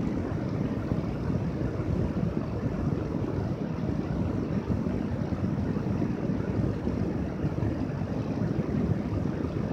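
Steady low rumbling noise, like air buffeting the microphone, with no clear separate events.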